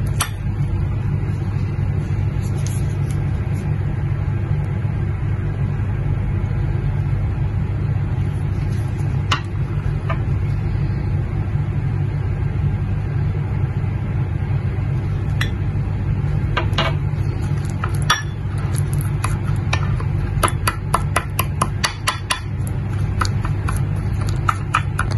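A metal spoon stirring a thick, oily paste in a glass bowl, with scattered clinks of metal and glass against the bowl that come more often in the last several seconds. A steady low hum runs underneath.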